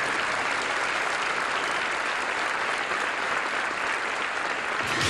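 Theater audience applauding steadily, with music coming in right at the end.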